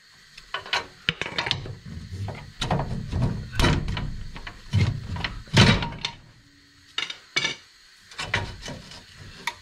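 Irregular clunks, knocks and scrapes of a Jeep Wrangler JK front coil spring being worked by hand into its seat, with two louder thumps about three and a half and five and a half seconds in.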